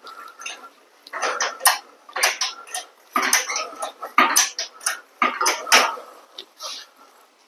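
Irregular metallic clanking and rattling as a motorcycle's rear wheel is worked out from between the swingarm and fender, in a series of short bursts of clatter.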